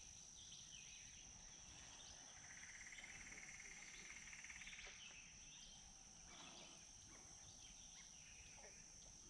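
Faint outdoor ambience: a steady, high-pitched insect drone throughout, with a pulsing, lower trill from about two and a half to five seconds in.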